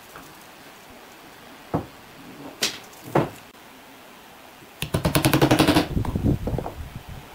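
Workshop sounds of wood and tools: a few separate knocks, then about a second of rapid rattling clatter just past the middle.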